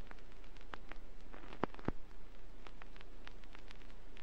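Vinyl record surface noise from a turntable stylus riding the groove with no music: a steady hiss with scattered crackles and clicks, and two louder pops a little before two seconds in, over a low steady hum.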